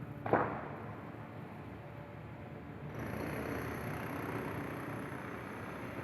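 Construction machinery at work: a single sharp knock, then steady mechanical noise that grows louder about three seconds in, with a thin high whine added.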